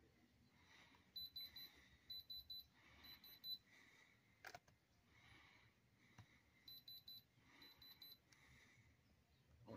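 Handheld thermal diamond tester (Diamond Selector II) beeping as its probe is pressed to a stone: five quick runs of three or four short, high beeps, with a single sharp click about halfway through.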